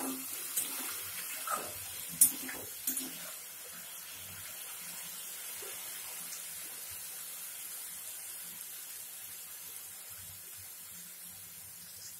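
Pan of pointed gourd, potato and spice paste simmering in water just added, a steady hiss and bubble. A spoon knocks against the pan about five times in the first three seconds.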